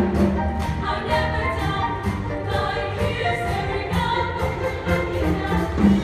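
Show choir singing in parts over musical accompaniment with a steady bass and beat.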